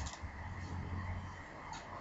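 Quiet room tone with a low steady hum and a couple of faint ticks.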